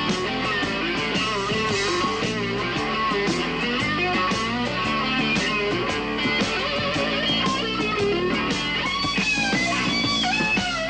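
Guitar-led rock music with a steady beat.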